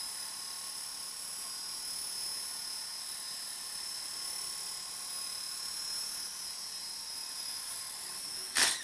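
Belt CP V2 electric RC helicopter running with a steady high whine, then a loud crash near the end, after which the whine stops.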